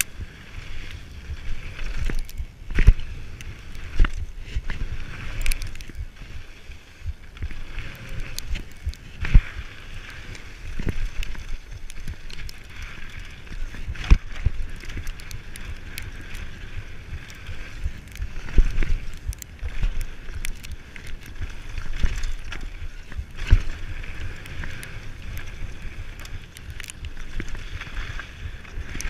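Mountain bike running fast down a rough dirt and rock trail: a steady rumble of tyres on gravel and wind on the microphone, broken by frequent sharp knocks and rattles as the wheels strike rocks and bumps.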